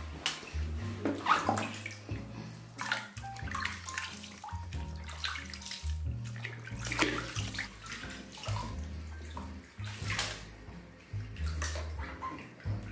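Water splashing and pouring in a plastic baby bathtub as a baby is washed and rinsed by hand, in irregular splashes, over background music with a steady bass line.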